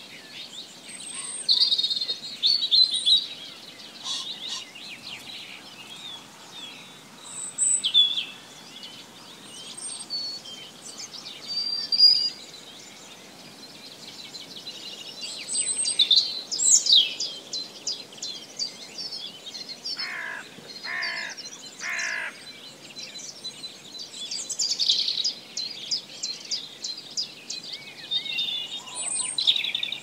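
Wild songbirds singing and calling: high chirps, trills and rapid twittering from several birds, with three lower calls in a row, about a second apart, some two-thirds of the way through.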